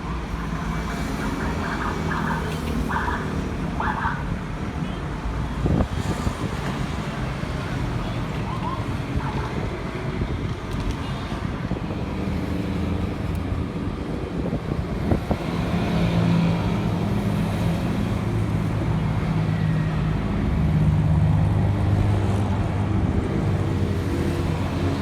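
Road traffic noise, with a vehicle engine drone growing louder in the second half. Three short higher-pitched sounds come early on.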